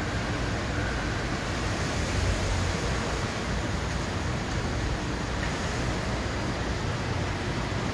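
Steady rushing background noise of a parking area with a low rumble underneath, unchanging throughout.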